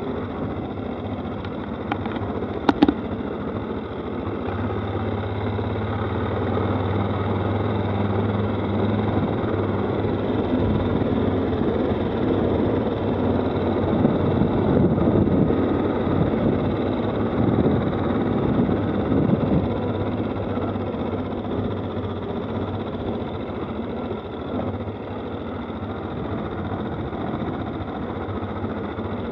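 Stels 800D ATV (quad bike) engine running under way, a steady drone that swells a little through the middle. A couple of sharp knocks come about three seconds in.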